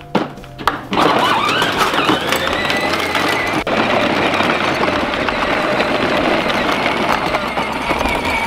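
Battery-powered ride-on toy tractor driving over gravel. From about a second in, its electric motor gives a steady whine that rises slightly and then holds, under the crunch of its plastic wheels rolling across the stones.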